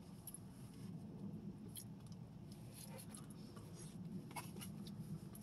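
Quiet eating: a few faint, sharp clicks from chewing and handling the food, over a low steady room hum.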